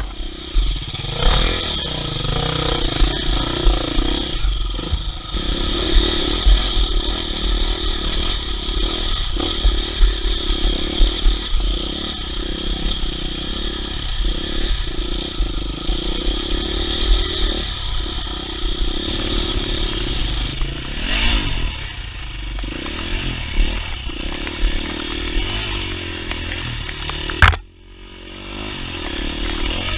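Off-road enduro motorcycle engine running as the bike rides a muddy trail, with clattering and knocks from the bike over rough ground. Near the end the sound cuts off abruptly after a sharp click, then builds back up.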